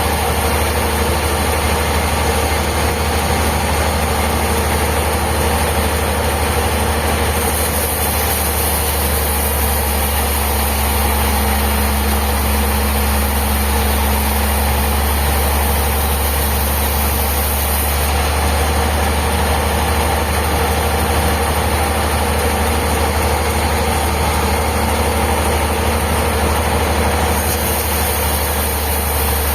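Sawmill machinery running steadily, a constant engine-like hum with a strong low drone.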